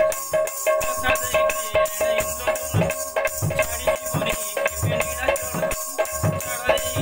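Instrumental passage of a devotional bhajan: a barrel-shaped mridanga hand drum gives deep strokes under a fast, steady rhythm of small high-pitched percussion, with a held tone sounding throughout.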